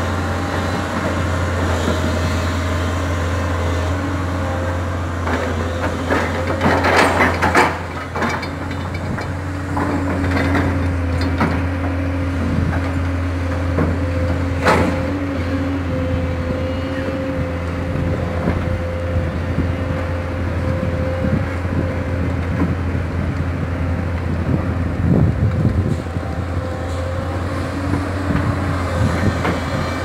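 Crawler excavator's diesel engine running steadily under load as it digs and loads a dump truck, with a pitched whine that shifts now and then. Rock and earth clatter for a couple of seconds about 7 seconds in, and there is one sharp knock near the middle.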